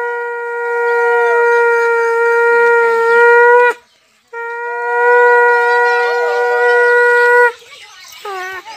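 Conch shell (shankha) blown for puja: two long, steady blasts of one held note, with a short break between them.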